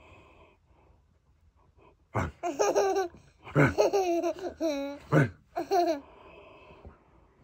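A toddler laughing in a series of high-pitched bursts, beginning about two seconds in and lasting a few seconds.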